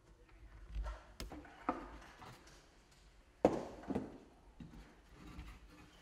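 Wooden beehive frames being handled: a handful of knocks and clicks of wood on wood, the loudest a sharp knock about three and a half seconds in.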